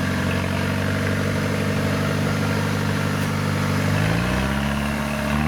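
An engine running steadily, its pitch rising about four seconds in as it speeds up.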